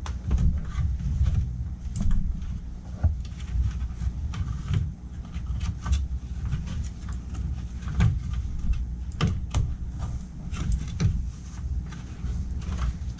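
Irregular knocks, clicks and scrapes of a humidifier's sheet-metal housing being worked into the opening in a furnace plenum, over a steady low rumble.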